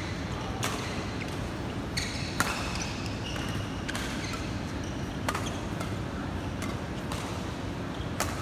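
Badminton rackets striking shuttlecocks in a front-court net drill: sharp hits every second or two, the loudest about two and a half seconds in, with short squeaks of court shoes and a steady hum of the sports hall.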